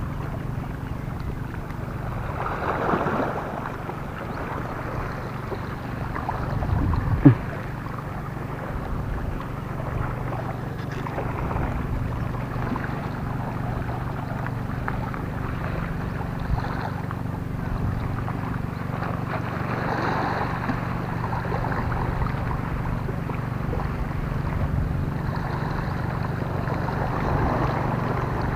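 Sea water washing and lapping against shoreline rocks, with wind buffeting the microphone, over a faint steady low drone. A single sharp knock about seven seconds in.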